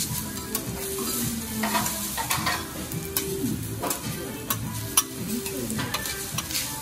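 Garlic fried rice sizzling on a steel teppanyaki griddle as a metal spatula and fork scrape through it and clack against the hot plate, with a sharp clack about five seconds in.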